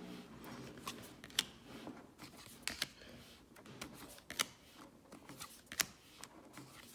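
Baseball trading cards being flipped and slid past one another by hand: faint, irregular clicks and snaps as each card is moved off the stack.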